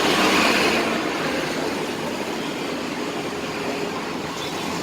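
Steady outdoor street noise, a constant rush of passing traffic, a little louder in the first second.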